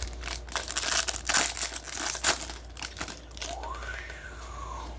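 Clear plastic card sleeve crinkling as gloved hands handle a trading card, a dense run of crackles in the first three seconds that then dies down.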